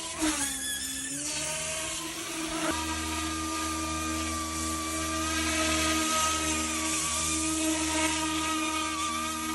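Yu-Xiang F11 RC helicopter's electric motor and rotor head whining in flight. The pitch dips and rises in the first second or so, then settles into a steady high whine. A deeper hum joins about three seconds in.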